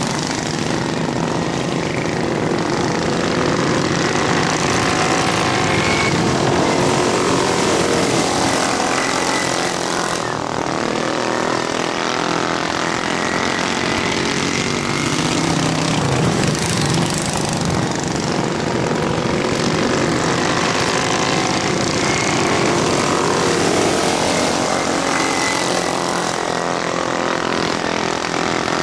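Several racing lawn mowers' small engines running hard around a dirt oval, their pitch rising and falling as they speed up and slow through the turns.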